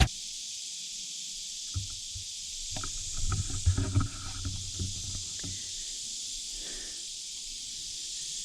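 Steady high hiss of summer insects, with a few low knocks and thumps on the aluminum jon boat about two to four seconds in.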